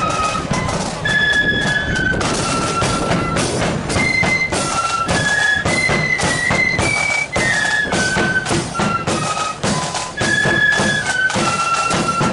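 Marching flute band playing a tune: many flutes carry the melody in unison over a steady beat of drums.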